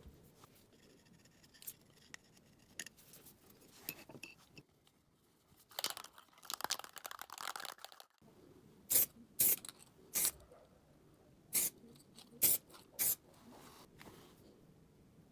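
Clear lacquer being sprayed from an aerosol can in six short, sharp hisses, after a couple of seconds of irregular rustling and handling noise.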